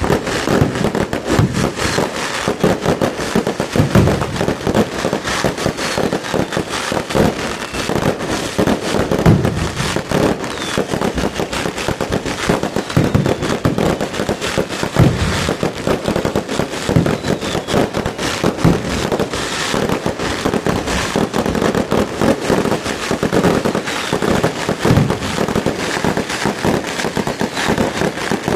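A fireworks display: a dense, continuous barrage of bangs and crackling.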